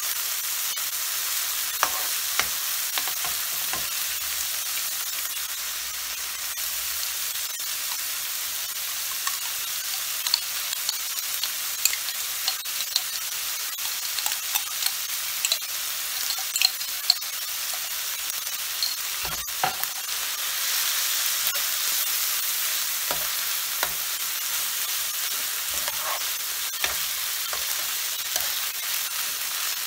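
Minced meat and sliced red onion frying in a nonstick frying pan: a steady sizzle with frequent clicks and scrapes of a metal spoon stirring against the pan. The sizzle grows louder for a few seconds about two-thirds of the way through.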